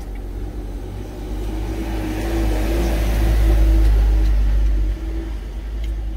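A motor vehicle passing close by on a wet road: its engine and tyre hiss swell over about three seconds and drop away sharply about five seconds in, over a steady low rumble.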